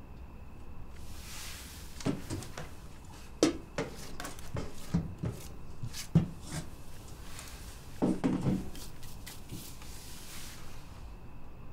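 Small clicks, knocks and rubbing of objects being handled at a wooden desk, coming in scattered clusters, with a louder scraping rustle about eight seconds in.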